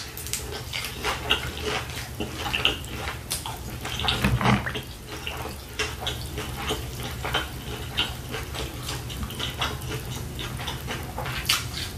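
Chewing a fried shrimp egg roll: a steady stream of small crackling, wet mouth clicks, a little louder about four seconds in.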